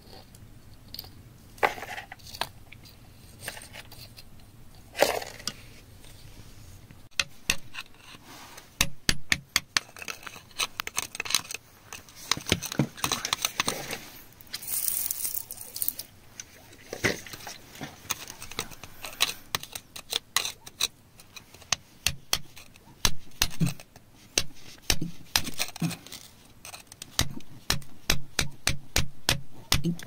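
A flat metal tool scraping and prying at wet, gritty soil and rock, with short clicks, scrapes and crumbling grit. A few scattered scrapes at first, then dense, quick runs of clicks from about a quarter of the way in.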